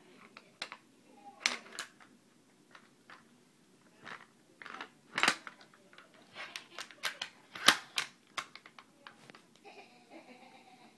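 Irregular clicks, taps and knocks of an airsoft M4 rifle's parts being handled and worked on by hand, including a stuck screw, with the sharpest knocks about five and seven and a half seconds in.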